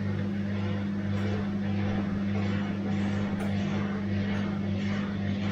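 Bosch washing machine running: a steady motor hum under a churning wash of water and drum noise, with soft swishes about twice a second.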